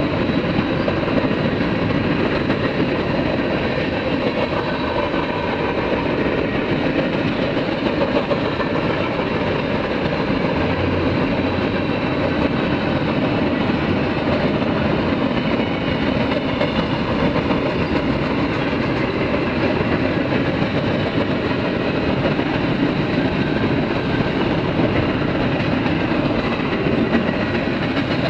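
CSX freight train's tank cars and boxcars rolling past at a grade crossing: the steady, unbroken rumble of steel wheels on rail.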